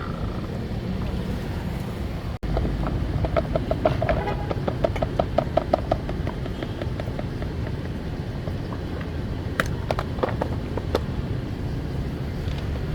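Steady low rumble of street background noise, with a quick run of short taps about four to six seconds in and a few sharp clicks later.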